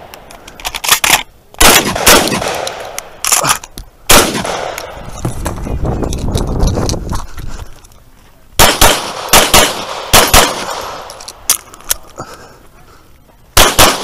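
Rapid gunfire: a string of semi-automatic shotgun blasts in the first four seconds, then after a pause of about four seconds, pistol shots in quick pairs from about eight and a half seconds in, with another fast string starting near the end.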